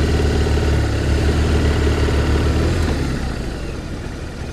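Motorcycle engine running with a steady low note, loud for the first three seconds, then fading under wind noise as the bike gets under way.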